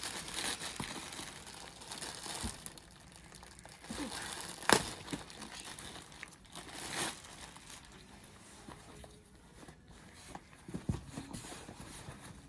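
Plastic packaging crinkling and rustling as a wrapped bag is handled and unwrapped, with one sharp crackle a little under halfway through.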